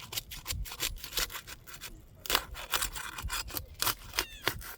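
Asphalt shingle being pried up and peeled from the shingle beneath: a run of irregular crackles and scrapes as the sealed tab tears loose, pulling its fiberglass matting off onto the shingle below.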